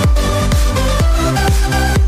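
Electronic dance music with a steady kick-drum beat, about two beats a second, under sustained synth notes.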